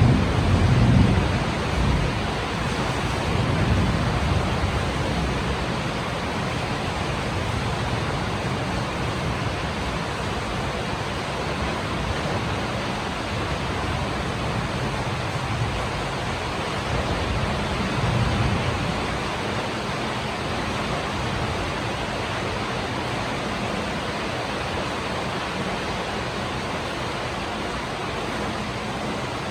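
Heavy rain falling steadily in a thunderstorm. A low rumble of thunder dies away in the first two seconds, and a fainter rumble swells briefly about eighteen seconds in.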